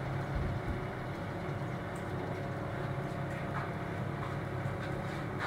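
Steady factory machinery hum with a constant low drone and background hiss, and a few faint knocks.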